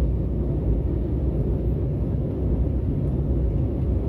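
Steady low rumble of an airliner's engine and airflow noise heard inside the cabin in flight shortly after takeoff.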